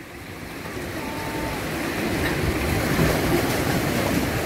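Sea surf washing against the rocks, swelling to its loudest about three seconds in.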